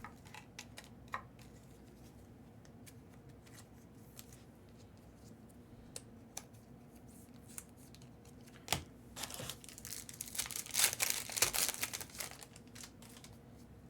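Light clicks and taps of trading cards being handled, then about three seconds of crinkling and tearing near the end as a card pack's plastic wrapper is ripped open.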